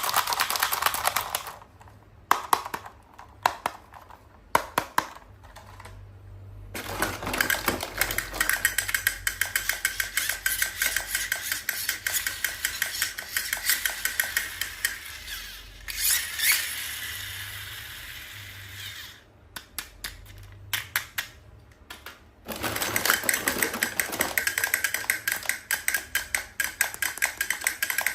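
Rapid, dense clicking and crackling from toys and their plastic packaging being handled, in stretches of several seconds with short pauses and a few single clicks between them.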